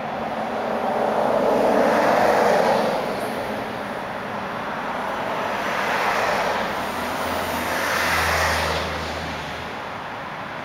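Cars driving past on a street one after another: three swells of tyre and engine noise. The loudest comes about two seconds in, and the last, about eight seconds in, carries a low engine hum.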